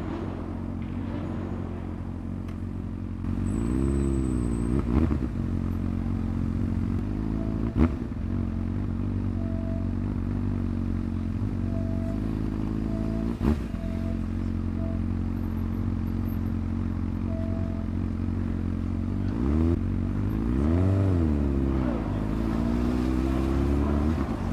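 Honda CB600F Hornet's inline-four engine through an SC-Project exhaust, running steadily. The revs rise and fall about four seconds in and again around twenty seconds in, with two sharp clicks in between.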